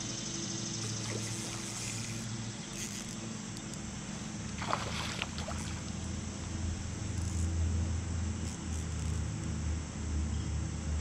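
Steady low rumble and water noise around a kayak on the river, with a brief louder rush about five seconds in.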